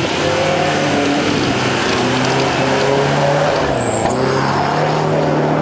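Engine of an off-road Toyota Hilux pickup running and revving under load through a muddy course, its pitch rising and falling.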